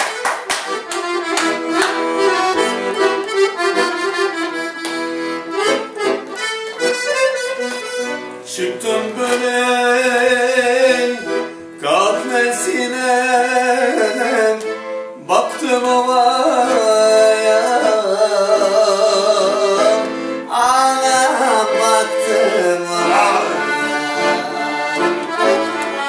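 Piano accordion playing a kuchek dance tune, with a melody over chords, breaking off briefly a few times.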